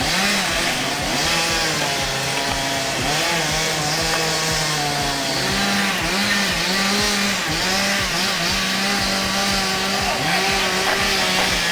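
Large chainsaw engine running, revved up and down, then held at high revs with brief dips in pitch from about halfway through.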